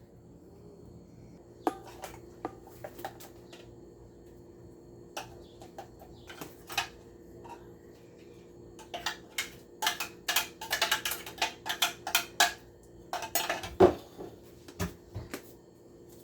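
Kitchen dishes and utensils clinking and knocking. A few scattered clicks at first, then a dense run of clatter in the second half.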